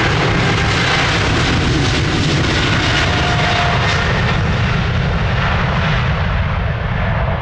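Boeing 777F freighter's twin GE90 turbofans at takeoff thrust, a loud steady jet roar with faint whining tones as the aircraft races down the runway past. The high hiss thins slightly near the end as it moves away.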